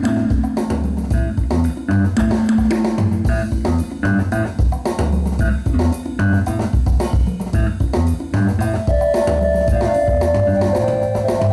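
A rock band playing: electric guitar, bass guitar and drum kit keeping a steady beat, with sustained guitar notes held in the last few seconds.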